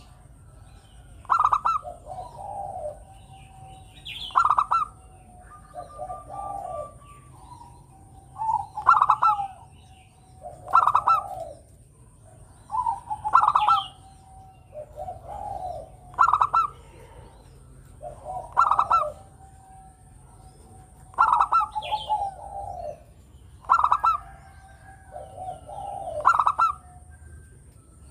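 Zebra dove (perkutut) singing its cooing song over and over, about one phrase every two and a half seconds. Each phrase opens with a loud, sharp higher note and runs into lower, rolling coos.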